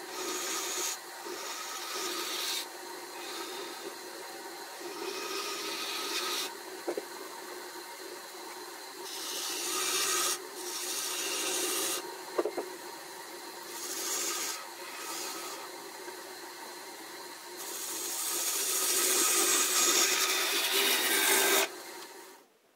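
Turning tool cutting a spinning magnolia blank on a wood lathe: surges of hissing cutting noise as the tool is pushed in and eased off, over the lathe's steady hum. The longest, loudest cut comes in the last few seconds, then the sound cuts off suddenly.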